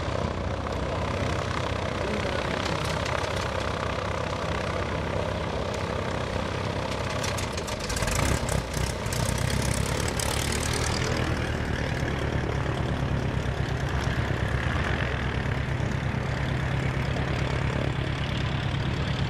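Light single-engine propeller aircraft piston engines droning steadily. About eight seconds in comes a brief loud rushing noise, followed by a steadier, stronger low engine hum.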